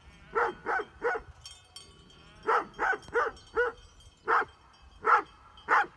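Great Pyrenees sheep dog barking at an intruder to guard its flock: about ten short, sharp barks in three quick clusters.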